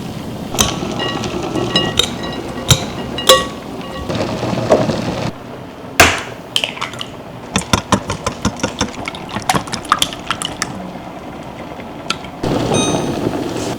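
Kitchen work sounds: a few clinks of dishes or utensils with short ringing tones. Then, about six seconds in, a run of quick sharp knocks, two to three a second, for about four seconds.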